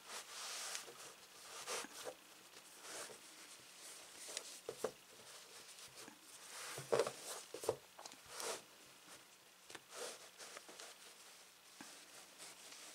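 Faint, scattered rustling and soft handling knocks as a felt-and-fabric lining is pushed into and smoothed inside a crocheted macrame-cord purse by hand.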